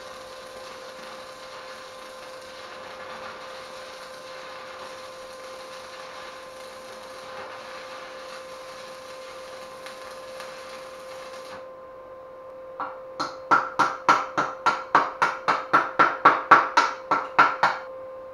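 Stick (MMA) arc welding with a 2 mm electrode on a small 130 A inverter welder: the arc's steady crackling hiss runs for about twelve seconds and then stops. About a second later come some twenty quick strokes at the fresh weld, about four a second, louder than the arc, as the slag is cleaned off.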